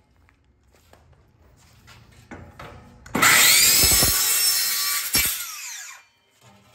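DeWalt cordless circular saw cutting through a metal railing rail. A few light knocks of handling come first. About three seconds in the saw starts with a rising whine, cuts for about two seconds, then winds down with a falling whine.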